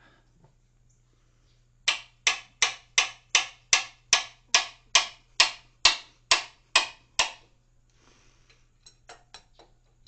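Hammer striking metal in a steady run of about fifteen sharp blows, roughly three a second, tapping on a stuck, very tight hydraulic drain plug or its wrench to loosen it.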